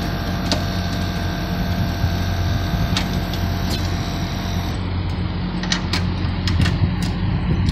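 Mr. Cool 36k BTU three-zone mini-split outdoor unit running with a steady low hum during a pump-down, its compressor drawing the refrigerant back into the condenser. About two-thirds of the way through, a faint high whine cuts off and the sound thins, while the low hum carries on, with a few light clicks.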